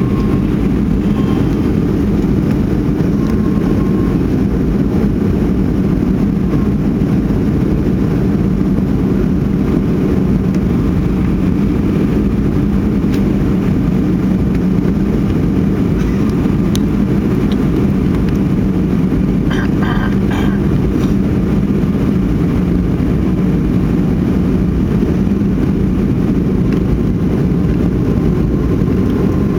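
Steady drone of an airliner's jet engines and airflow heard inside the passenger cabin during the landing phase, with a constant low hum. A brief patter of faint clicks about two-thirds of the way through.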